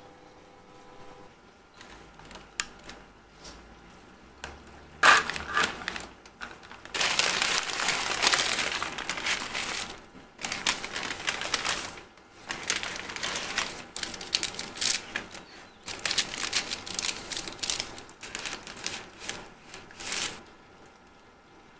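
Paper takeaway bag and paper sandwich wrapper rustling and crinkling as food is taken out and unwrapped by hand. It comes in bursts with short pauses, starting about five seconds in and stopping shortly before the end.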